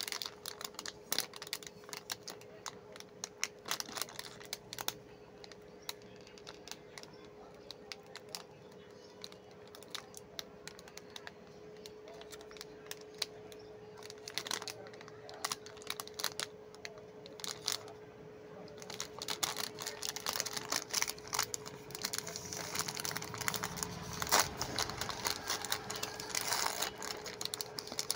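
Plastic ice-cream bar wrappers crinkling and clicking in the hand, sparse at first, then crackling densely from about two-thirds of the way through as a wrapper is pulled open. A steady faint hum runs underneath.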